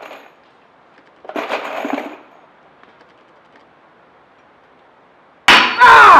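A small hammer tapping a nail into a wall with a short metallic clink, then about five and a half seconds in a man's sudden loud yell, the cry of someone who has just hit his own hand with the hammer.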